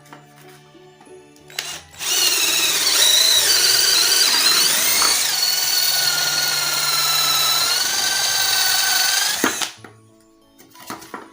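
12 V cordless drill (GAOCHENG GC-CL12V) with a 12 mm bit running at speed for about seven seconds, starting about two seconds in and stopping suddenly. Its motor whine sags in pitch briefly around the middle, then steadies.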